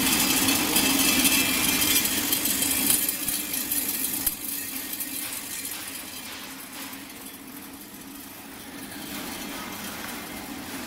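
Popcorn production-line machinery running: a steady mechanical hum with a hiss and light rattling over it, louder for the first four seconds or so, then settling lower.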